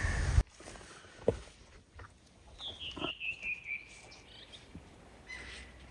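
A songbird sings one short phrase of about eight quick notes, stepping down in pitch, against a quiet background, with a faint chirp later. A low rumble at the very start cuts off abruptly.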